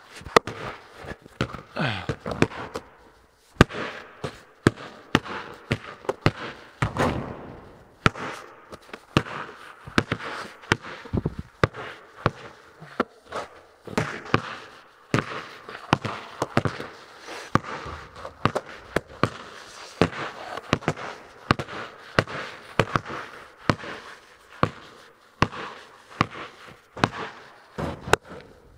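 Basketballs bouncing on a concrete floor and banging off the backboard and rim: many sharp thuds in an irregular series, each echoing around a large, empty metal-walled building.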